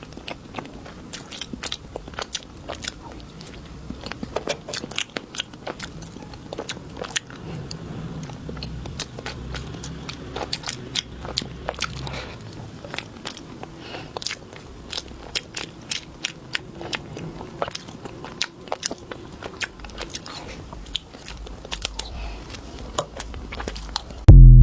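Close-miked eating: crunchy bites and chewing, a steady run of sharp crackling clicks over a low rumble. A sudden loud burst with a brief tone cuts in at the very end.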